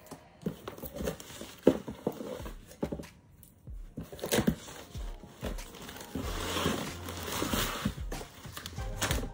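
Cardboard and paper packaging of a laptop box being handled and unpacked: sliding, rustling and crinkling with scattered taps and knocks, and a longer stretch of rustling about two-thirds of the way through.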